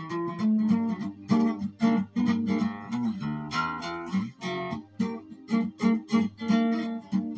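Guitar music of quick plucked and strummed notes, played as a film score.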